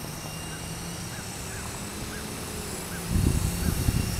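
Faint high whine of a distant Double Horse 9100 RC helicopter, under a low steady hum and a run of short high chirps about two a second. Wind rumbles on the microphone from about three seconds in.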